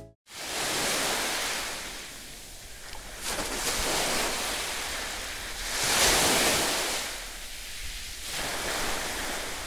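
Sea waves washing onto a beach: a steady rush of surf that swells and falls back every two to three seconds, loudest about six seconds in.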